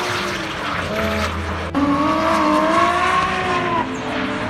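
Drift cars sliding through a corner, engines at high revs with tyre squeal. After an abrupt cut about a second and a half in, a louder wavering pitched note rises and falls for about two seconds.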